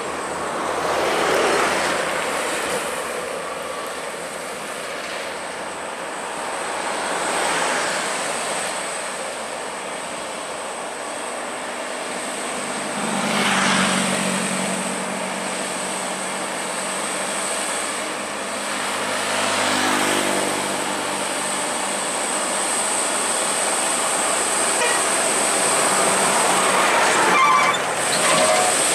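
Diesel trucks, among them a Mitsubishi Fuso Canter, climbing a hill under load and passing one after another. Engine and tyre noise swells and fades with each pass, about five times.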